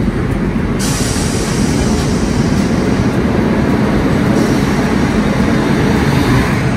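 Loud, steady rumble and clatter of train wheels on rails as a passenger train and a freight train pass close on adjacent tracks: first the freight's open wagons, then its electric locomotive. A hiss comes in about a second in.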